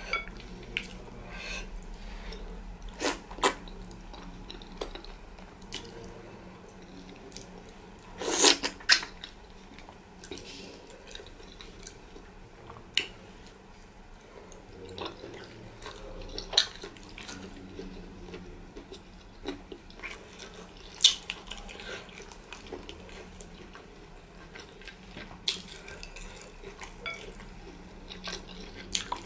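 Close-miked eating sounds of pounded yam fufu and Ghanaian light soup with meat, eaten by hand: wet smacks and clicks of chewing, lips and fingers in the soup, scattered through, the loudest about eight seconds in.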